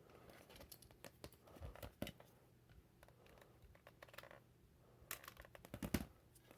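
Faint handling noises at a workbench: scattered small clicks and rustles as parts and tools are moved about, with a few sharper clicks about two seconds in and again near the end.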